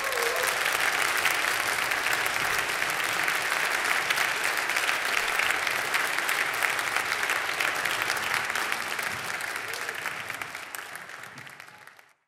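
Concert audience applauding, a steady dense clapping that fades away near the end.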